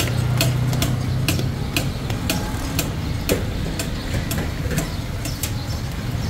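A machine running with a steady low hum and a sharp regular click about twice a second.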